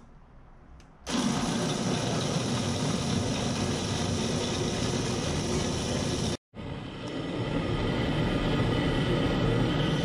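Electric countertop blender grinding peeled chestnuts: the motor starts about a second in and runs with a steady grinding whir, cut off for an instant about six seconds in, then running on.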